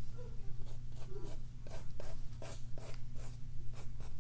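Pencil drawing on paper: a run of short scratchy strokes, several a second, over a steady low hum.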